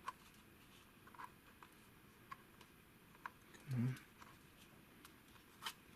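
Faint, scattered clicks and taps of a smartphone and a plastic Gear VR headset being handled as the phone is fitted into the headset, with a short vocal sound a little before four seconds in.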